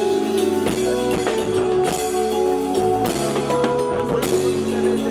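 A band playing an instrumental during a sound check: a drum kit keeps a steady beat under held guitar and keyboard-like notes.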